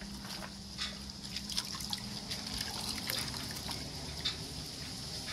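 Dye water splashing and dripping in a small bowl as gloved hands squeeze and rinse a tie-dyed cotton mask, with many small, irregular splashes and drips.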